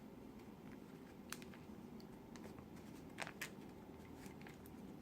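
Faint plastic clicks of a 3x3 Rubik's cube's layers being turned by hand: a few scattered clicks, the clearest about a second in and a close pair about three seconds in, over low steady room noise.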